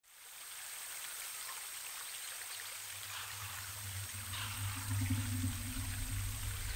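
A steady rushing hiss of water fades in from silence within about half a second, with a low hum building underneath.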